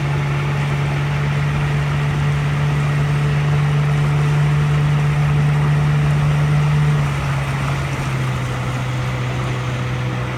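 Outboard motor of a small launch running steadily at low speed. About seven seconds in, its pitch drops slightly and it gets a little quieter.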